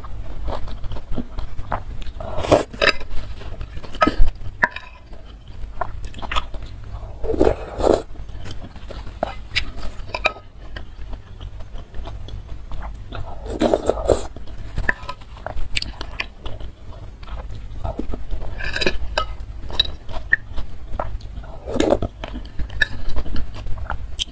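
Close-miked eating of spicy noodle soup: a slurp from the spoon every few seconds, with chewing and the metal spoon clicking against the bowl in between.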